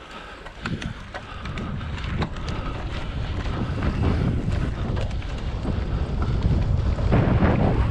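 Wind buffeting the microphone of an on-board camera on a cyclocross bike, mixed with tyre rumble over a dirt and grass course and scattered short clicks and rattles. It grows steadily louder as the bike gathers speed.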